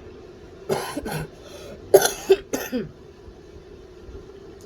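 A young person coughing hard, about four coughs in quick succession starting about a second in, right after gulping down a bottle of Sprite.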